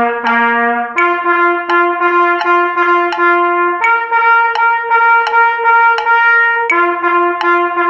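Trumpet playing an exercise on the open natural tones, without the valves: evenly repeated tongued notes, about three a second. The notes step up a fifth about a second in, up again to the octave a few seconds later, and back down to the middle note near the end.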